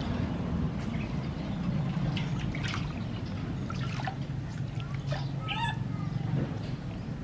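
Water splashing and trickling in a steel basin as hands wash a baby macaque, over a steady low hum. About five and a half seconds in, a short animal call is heard.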